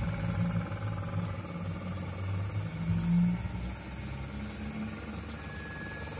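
0 gauge model locomotives running on the layout track: a low hum of motor and wheels, loudest for the first three seconds or so and then fading away, under a faint steady high whine.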